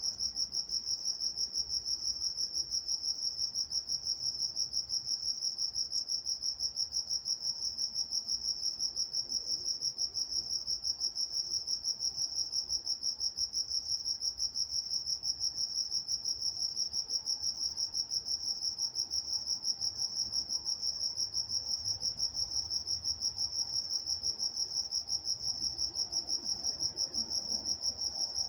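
Crickets chirping at night: a steady, high-pitched chirping that pulses evenly several times a second and never breaks.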